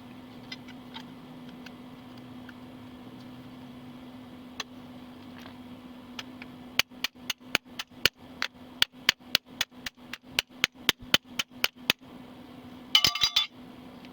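Rapid, evenly spaced metallic clinks, about four or five a second for some five seconds, followed near the end by a short, harsh, ringing rattle, over a steady low hum.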